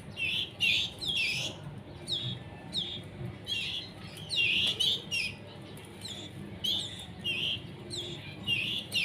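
Young canaries giving short, high chirps that fall in pitch, repeated about twice a second: the begging calls of chicks still being hand-fed during weaning.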